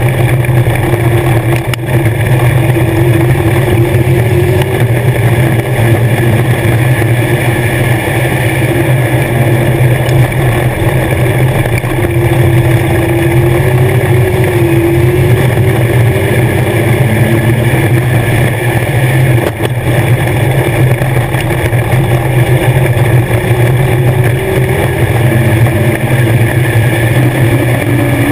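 Legends race car's four-cylinder Yamaha motorcycle engine running hard at racing speed, heard from inside the cockpit. The sound is loud and steady, with only small rises and falls in pitch as the car goes around the dirt oval.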